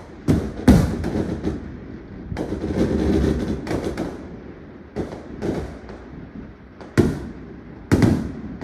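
Aerial firework shells bursting: a series of sharp bangs, the loudest a little under a second in, with a few seconds of dense crackling in the middle and more single bangs near the end.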